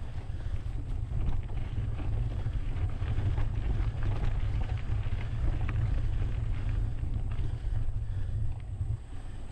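Wind buffeting the microphone of a GoPro action camera on a moving mountain bike, a steady low rumble, with tyre noise and many small clicks and rattles from the bike over the trail. The rumble dips briefly near the end.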